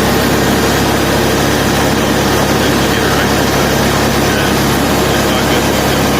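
Heavy farm-vehicle engine running steadily: a constant drone with a low hum and no change in speed.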